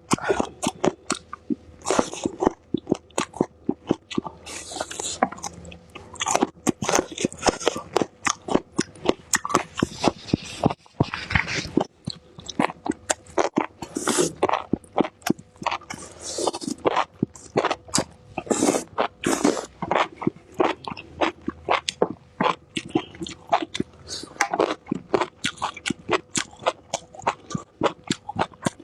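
A person biting and chewing raw bird's eye chili peppers and enoki mushrooms: a dense, irregular run of crisp, wet crunches, several a second.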